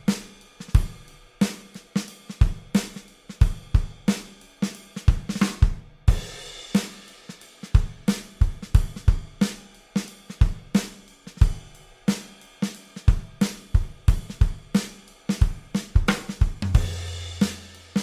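Drum-led background music with a steady beat, with a cymbal crash about six seconds in and another near the end.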